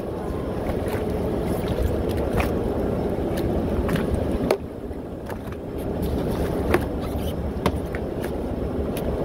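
Steady low rumble of water and wind around a jet ski moored in open water, with a few scattered light knocks and clicks.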